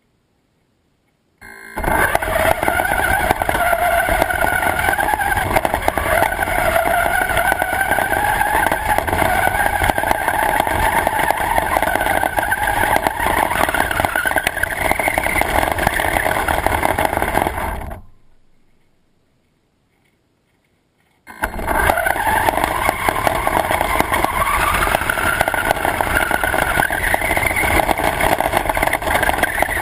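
Radio-controlled car driving, its motor whining and rising and falling in pitch with speed over a loud rumble of wheels on the ground. The sound starts abruptly about a second and a half in, fades out around eighteen seconds, and starts again suddenly about three seconds later.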